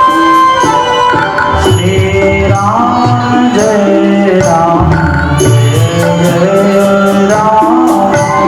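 Devotional music: a wavering melody over a hand-drum beat.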